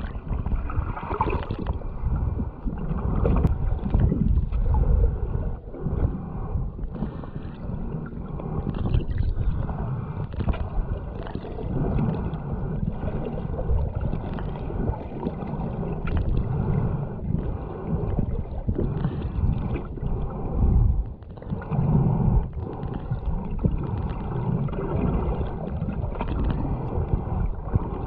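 Muffled water sounds picked up by a camera held just under the sea surface: water sloshing and rushing against it in irregular low surges, with scattered knocks.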